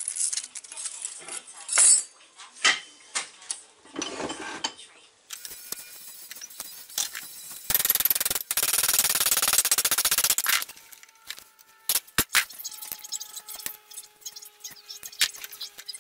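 Metalwork on small sheet-steel tabs: the pieces clink as they are handled. About eight seconds in comes a loud steady noise lasting about three seconds. Then come separate hammer blows on a steel strip clamped in a bench vise, with the steel ringing on after the strikes.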